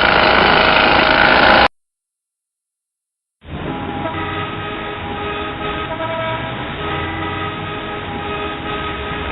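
A loud mechanical clip cuts off abruptly after about a second and a half, followed by dead silence. About three and a half seconds in, busy road traffic fades up and runs on, a steady rumble with many held horn tones layered over it.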